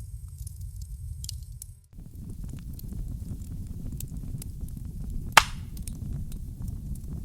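Fire burning: a low rumble with scattered crackles. About two seconds in it cuts to another fire recording with denser crackling and one loud, sharp pop a little past halfway.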